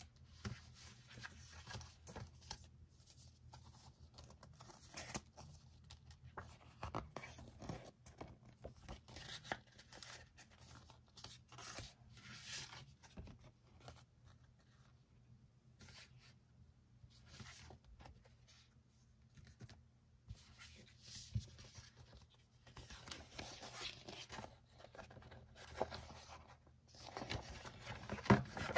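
Paper and card rustling and sliding as album inserts, photocards and a folded poster are handled and pulled out, in irregular short strokes that get louder near the end as the poster is unfolded.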